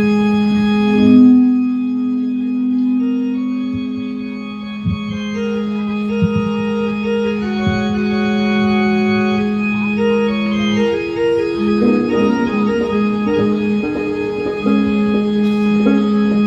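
Live instrumental music: a steady organ-like drone note held under a slow melody of changing notes. Around two-thirds of the way in, the drone drops out briefly under a run of quicker notes, then comes back.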